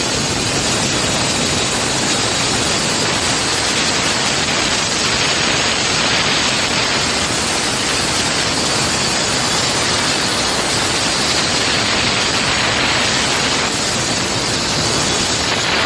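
Walk-behind concrete saw cutting a joint into a floor slab: its diamond blade grinding through the concrete makes a loud, steady, hissing grind over the machine's engine.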